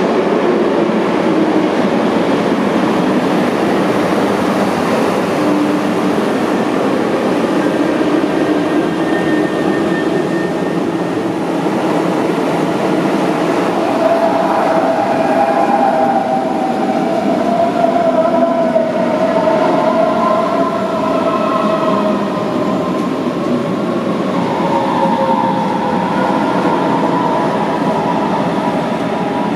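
Electric train running through the station: a steady rumble and hiss of wheels on rails, with a whine that slides in pitch through the second half.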